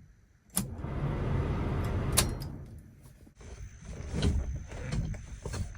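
Clicks and short mechanical runs from a 1969 Chevelle SS's body. A sharp click is followed by about a second and a half of rumbling that ends in a sharp clack. After a short lull comes a second, rougher stretch of rumbling with light clicks.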